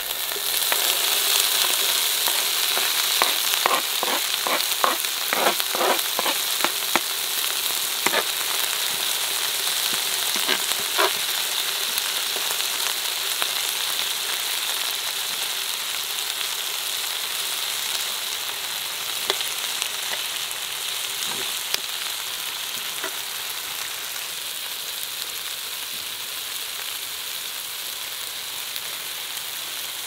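Chopped tomatoes dropped into a hot frying pan with kofta patties and vegetables, starting a loud sizzle. A run of spoon clicks and scrapes against the pan comes a few seconds in, then the frying settles into a steady sizzle that slowly eases.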